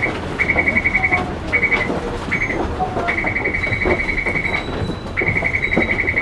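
A high-pitched electronic buzzer trilling in rapid pulses. It sounds in bursts of uneven length, a few short and some lasting over a second, over the low steady rumble of the tram interior.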